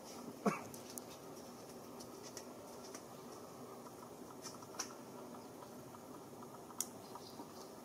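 Steady background hiss of outdoor ambience, with one short, sharp falling chirp about half a second in and a few faint ticks later on.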